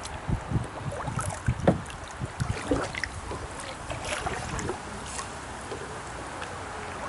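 Paddling from a canoe: water splashing and dripping off the paddle, with short clicks. Wind rumbles on the microphone in the first few seconds.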